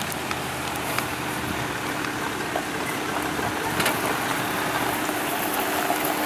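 Diesel engine of a Ram wrecker tow truck running steadily as the truck rolls slowly, a low even hum.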